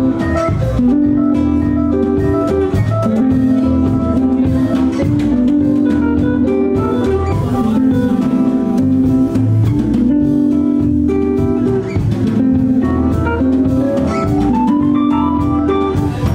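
Live band music: guitar with a drum kit keeping a steady beat and a melody of held notes over it.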